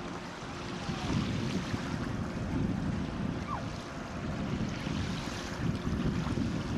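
Wind buffeting the microphone over the rush of water past a boat under way, a low gusty noise that swells and fades.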